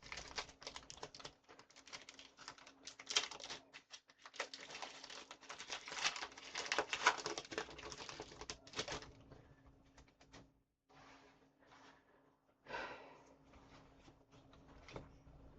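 Foil trading-card booster pack being torn open, the wrapper crinkling and crackling, loudest in the first nine seconds, then quieter rustling as the cards are handled.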